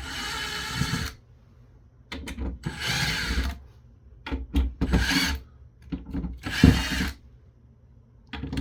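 Cordless drill/driver whining in four short runs as it backs screws out of a motherboard, with small clicks of handling between the runs.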